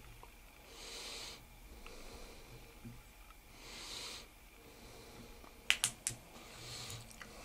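A person breathing close to the microphone, a soft hiss about every three seconds, and a quick run of three or four sharp clicks about six seconds in, as the UV curing light is switched off and moved away.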